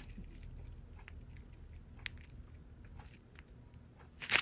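Faint, scattered light clicks and ticks from handling small plastic bags of diamond painting drills, about a dozen in all.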